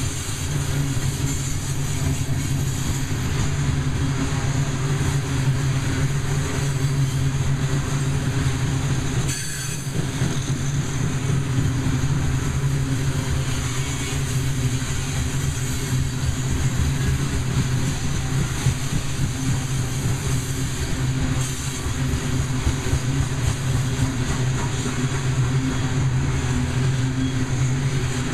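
Loaded coal hopper cars of a freight train rolling past, their steel wheels making a steady rumble on the rails.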